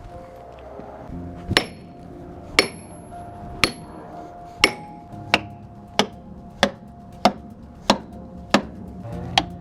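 A hammer driving wedges into a heavy log to lift its weight off a pinched sawmill blade. About a dozen sharp strikes, the first few ringing, come about one a second at first and then quicker, roughly every two-thirds of a second.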